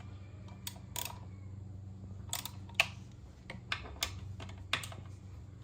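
Scattered sharp metallic clicks and clinks of tools and exhaust hardware being handled during a scooter exhaust install, about seven in all with the loudest a little before the three-second mark, over a steady low hum.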